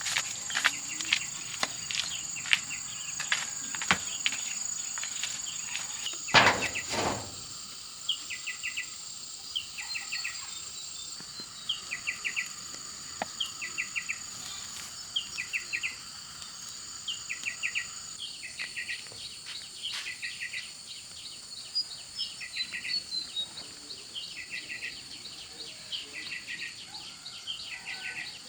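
Outdoor insect chorus with a steady high-pitched drone, and a short call of three or four quick chirps repeated about every second and a half. In the first few seconds there is a run of sharp clicks, with a louder knock just after six seconds.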